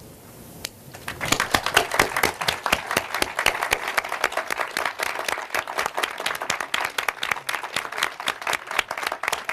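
Audience applauding: after about a second of quiet, the crowd breaks into steady, sustained clapping.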